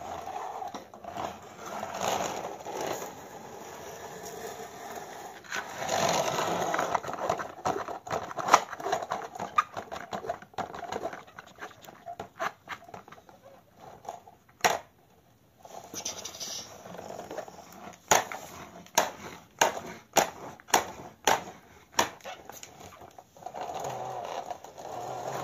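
Plastic toy dump truck pushed by hand over a gritty floor: its plastic wheels roll and scrape, with many sharp plastic clicks and knocks in the second half.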